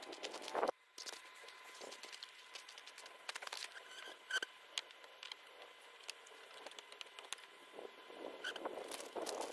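Scattered small clicks, taps and rustling from hands fitting a new fuel line onto the carburetor of an ATV engine.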